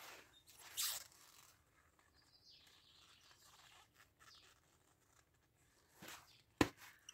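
Quiet handling noises: a brief rustle about a second in, then a single sharp knock near the end.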